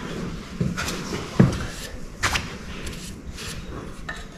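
Handling sounds of new main bearing shells being set into the saddles of a John Deere engine block: scattered light clicks and knocks of metal on metal, the loudest knock about a second and a half in.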